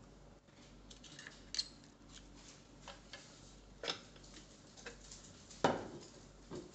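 Scattered metal clicks and knocks as the steel lever arm and weight of a bench-top oil friction tester are handled and set back in place, the loudest knock about two-thirds of the way through.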